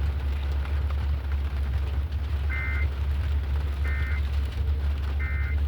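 Three short bursts of Emergency Alert System digital data tones, a harsh two-tone warble, about 1.3 s apart, over a steady low hum. These are the end-of-message bursts that close the alert.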